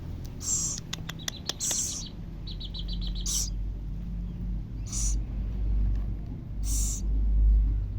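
Baby scops owl giving short, high hissing calls about every second and a half while being fed, the hoarse begging call of an owlet. A few sharp clicks come about a second in, and a quick run of high chirps follows about three seconds in, all over a low rumble.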